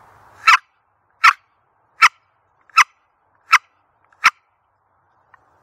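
Wooden box turkey call being stroked, giving a series of six short, evenly spaced yelps, about one every three quarters of a second.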